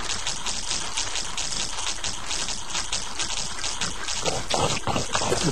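Cartoon sound effect of squirrels rapidly nibbling pretzels: a fast, even crunching patter of about eight or nine bites a second.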